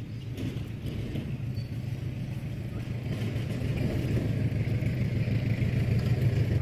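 A road vehicle's engine running with a steady low hum, growing louder as it approaches and loudest near the end.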